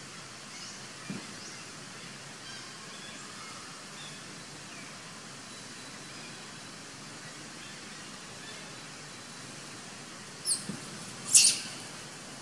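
Steady outdoor hiss with faint, scattered bird chirps, then two short, high-pitched animal squeaks near the end, the second one loud.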